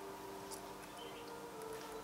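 Soft, steady sustained tones of quiet background music, with a few light ticks and scuffles from young puppies moving about on the pen floor, the clearest tick about a quarter of the way in.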